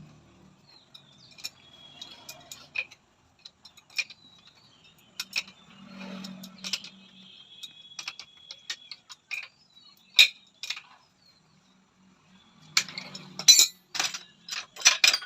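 Light metal clinks and taps of tools and parts being handled, scattered and irregular, then a quick run of clinks and knocks near the end, typical of reassembling a motorcycle rear shock absorber on a workbench.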